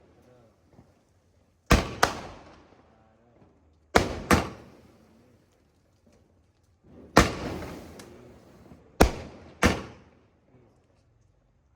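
A 60-shot firework cake firing: sharp bangs, mostly in close pairs a fraction of a second apart, a pair every two to three seconds, each bang trailing off in a short echo.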